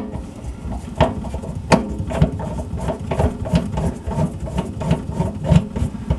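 Loosening the mounting screws and bracket of a kitchen sink strainer basket: a run of irregular metal clicks and knocks, a few a second, with short squeaks between them.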